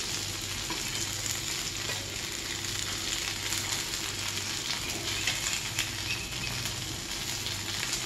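Fish steaks sizzling steadily in a little oil on a flat iron griddle (tawa), with a few light clicks as a steel spatula scrapes under the pieces and lifts them off.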